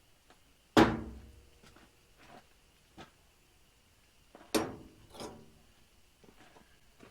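Sharp metal clanks with a short ringing tail as the parts of a gas grill are knocked and handled during its teardown. There is a loud clank about a second in, another about four and a half seconds in, and lighter knocks between and after.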